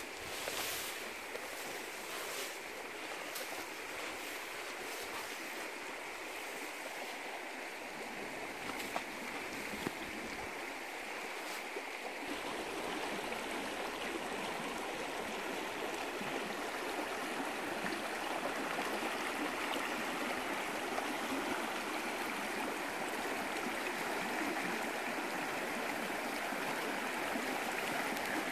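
Shallow stream running over boulders and stones, a steady rushing of water that grows louder about halfway through as the flow quickens over a riffle. A few short ticks sound in the first seconds.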